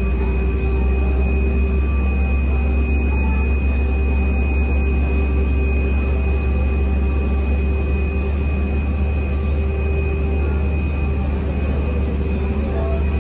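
Steady machine drone: a heavy low hum with several constant tones over it, including a thin high whine.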